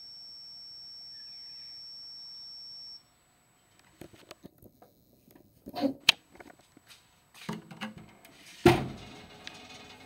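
Danube DD16 electronic tumble dryer's signal buzzer: one steady high beep that cuts off about three seconds in, marking the end of the cycle. After a short silence come clicks and knocks as the door is unlatched and swung open, the loudest a single thump near the end.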